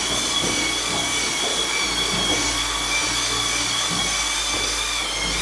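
Handheld electric drill with a paddle mixer running steadily with a high whine, stirring a tub of building mix.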